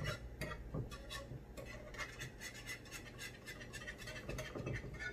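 Wire whisk scraping around the bottom of a skillet as it stirs a cooking butter sauce: quick, regular scratching strokes, several a second.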